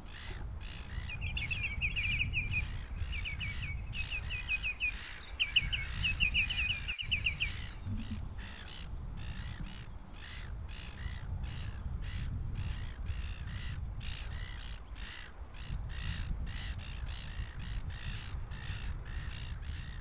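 Wild shorebirds calling over a low rumble. For the first several seconds a rapid run of clear, ringing piping notes sounds, and short harsh calls repeat about once or twice a second throughout.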